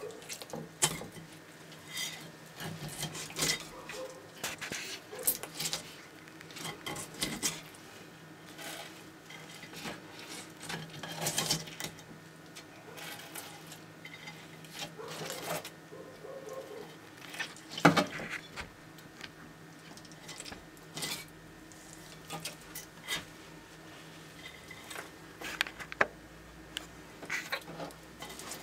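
Dumeril's monitor lizard eating a chick: irregular crunching, clicking and wet tearing as its jaws work on the prey, with one louder crack about two-thirds of the way through.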